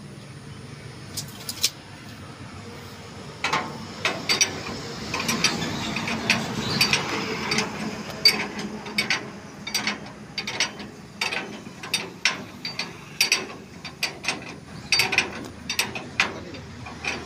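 Wrench being worked on the bolts of a Surjeet thresher's steel frame, tightening them so they do not work loose: a long irregular run of sharp clicks, several a second, starting a few seconds in.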